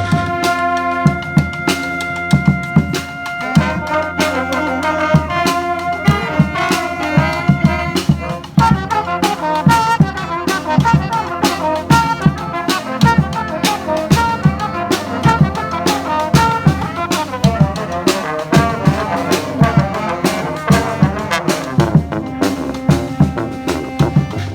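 Brass street band playing, with trumpets and trombones over a steady drum beat. Long held chords give way, about eight seconds in, to a faster, busier melody.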